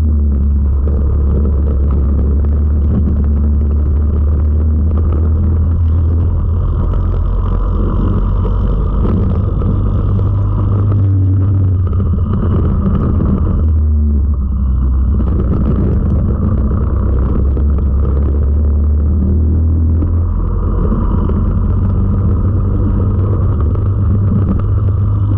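Four-stroke racing kart engine, heard from the kart itself, running hard at race pace. Its note dips briefly about 11 and 14 seconds in, then picks up again.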